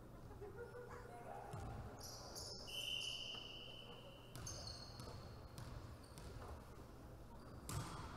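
Volleyball bouncing on a wooden gym floor as the server gets ready, with a referee's whistle held for about a second and a half about three seconds in. A sharp slap near the end is the serve being struck.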